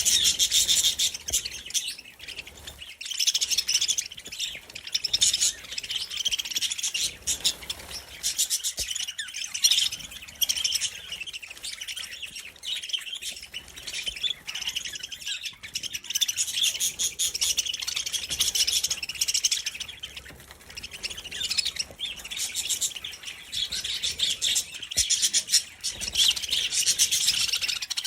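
A flock of budgies chattering and chirping continuously, in waves that swell and fade every few seconds.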